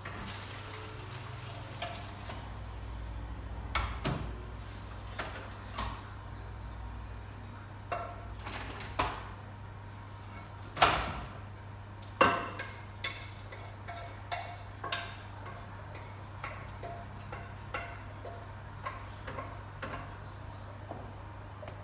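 Scattered clinks and knocks of kitchen utensils, dishes and a pan being handled on a countertop, with two louder clatters a little past the middle, over a steady low hum.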